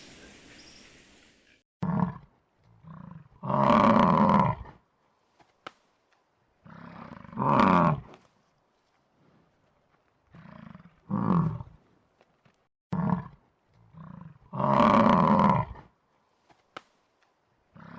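A large animal roaring repeatedly: three long, loud roars with shorter calls between them, separated by silence.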